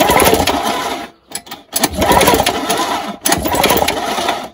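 Old Suffolk Punch lawnmower engine being cranked over by hand to make it spark, in three bursts of turning with short breaks about one and three seconds in, stopping suddenly at the end.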